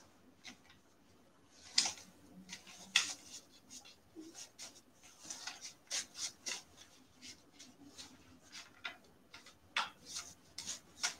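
Sliding ratchet-track reel seat on a rigid sea fishing rod being worked by hand while it is jammed, giving faint irregular clicks and scraping rubs as the loosened seat is forced along its track.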